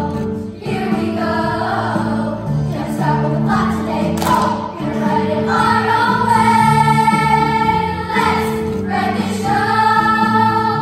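A large children's chorus singing in unison over instrumental accompaniment, with long held notes in the second half, breaking off together at the very end.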